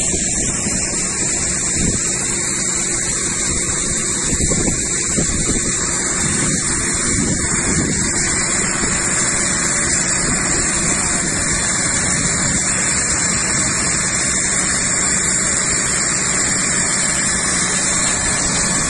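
Fire engine running its water pump, a steady mechanical noise with a high whine, while a hose jet sprays water onto the fire.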